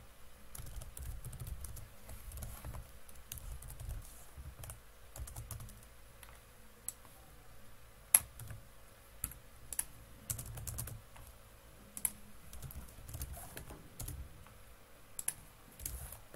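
Typing on a computer keyboard: irregular key clicks in short runs, with one sharper, louder click about halfway through.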